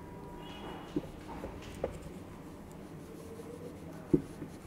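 Marker pen writing on a whiteboard: faint rubbing strokes broken by light taps of the tip on the board, about a second in, just before two seconds, and a louder one near the end.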